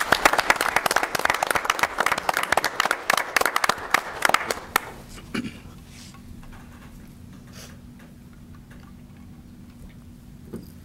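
A small group applauding for about five seconds, then the clapping dies away to quiet room tone with a faint steady hum.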